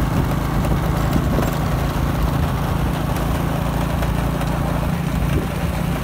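Motorcycle engine running at a steady pitch, with a steady hiss over it.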